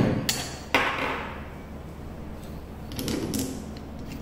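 Parts being fitted to a Makita cordless angle grinder's head: a sharp clack, a second clack with a short metallic ring less than a second later, then faint handling rattles about three seconds in.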